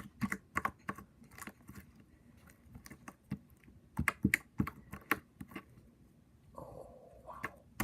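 Sticky slime being squeezed and stretched by hand, giving off irregular sharp clicks and pops, several a second.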